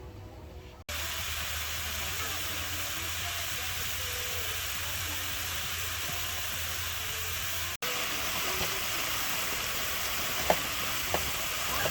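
A steady, even hiss with a low hum underneath. It breaks off abruptly about a second in and again near eight seconds, and a few faint clicks come near the end.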